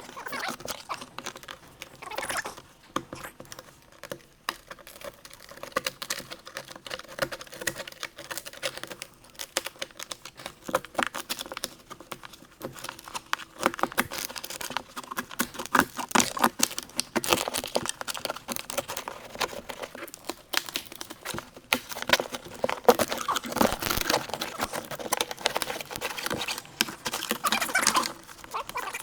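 Packaging tape and plastic wrapping being worked and peeled off a fiberglass windscreen: irregular crinkling, crackling and small tearing sounds with many quick clicks, busiest in the second half.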